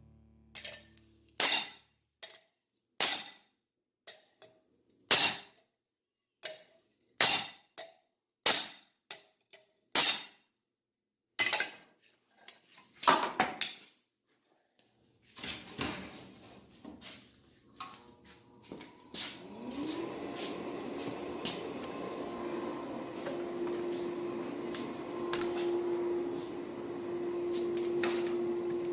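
Hammer blows on steel at the anvil, sharp metallic strikes about one every one to two seconds, each ringing briefly. About halfway through they stop, and a machine starts up and runs on with a steady hum and a tone that rises and then holds.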